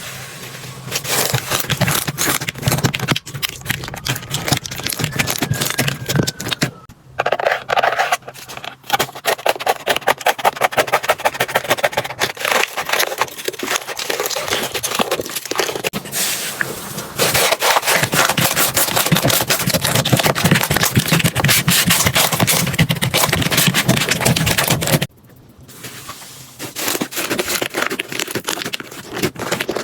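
Slime being squeezed and pressed by hand, giving dense runs of rapid sticky clicks and crackling pops. The sound breaks off abruptly about 25 seconds in, then starts again.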